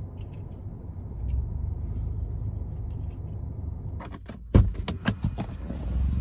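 A car door being opened from inside. A few clicks as the interior handle is pulled, then a sharp latch clack about four and a half seconds in, followed by smaller knocks as the door is pushed open. A steady low rumble underlies it and grows louder near the end as the door opens.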